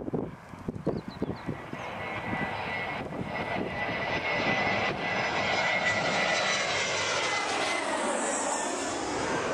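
Airbus A320-214 airliner with CFM56 jet engines on landing approach, its jet noise swelling steadily as it nears and passes overhead, with a steady high fan whine. Near the end the sound takes on a sweeping, phasing quality as it goes over. Wind buffets the microphone in the first second or so.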